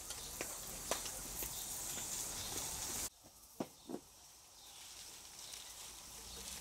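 Pieces of cut zucchini being handled and pressed into a glass jar: a soft rustling hiss with scattered light clicks. Partway through it drops much quieter, with two sharp clicks in quick succession.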